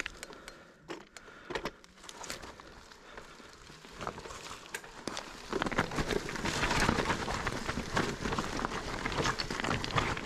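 Mountain bike riding a rough singletrack trail: tyres rolling over dirt and stones with the frame and chain rattling and knocking. Scattered clicks at first, turning into a louder, denser clatter about halfway through.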